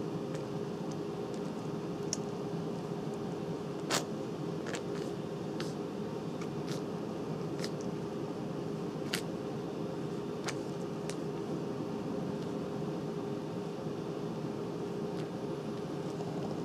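Wet clicks and smacks from two three-week-old Japanese Chin puppies suckling at their mother, coming irregularly about once a second, the sharpest about four and nine seconds in. Under them runs a steady mechanical hum with a faint constant tone.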